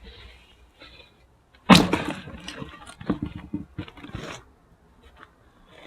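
A single overhead axe blow striking a firewood log, a sharp crack about two seconds in, followed by a couple of seconds of wood clattering and knocking.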